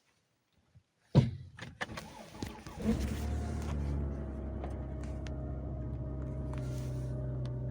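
Volvo S80 3.2's straight-six engine cold-started: a sharp click about a second in, a few smaller clicks, then the engine cranks and catches about three seconds in and settles into a steady idle with a faint tone slowly falling. No whine is heard from the power steering pump, whose fluid no longer foams.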